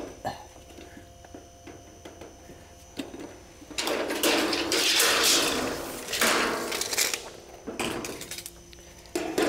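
Scraping and clattering of a steel tape measure and a length of sheet-metal fascia being handled on a concrete floor, loudest for a few seconds in the middle, with a sharp click near the end.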